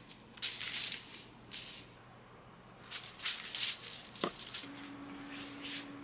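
Crisp crinkling and rustling of lettuce leaves and aluminium foil being handled, in two bunches of short bursts with a brief last rustle near the end and a single click a little after the middle.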